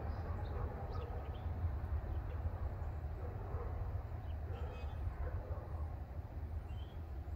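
Steady low rumble of a freight train moving away in the distance, with a few faint bird chirps.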